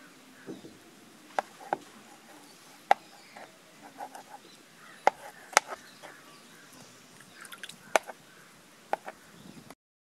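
Two kitchen knives chopping mushrooms on a plastic cutting board: sharp, irregular taps of the blades striking the board, a dozen or so. The sound drops out entirely just before the end.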